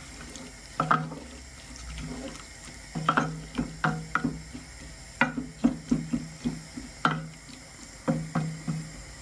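Wooden spoon stirring leafy greens in a watery curry base in an aluminium pot: wet scraping strokes and light knocks against the pot, coming in short irregular runs.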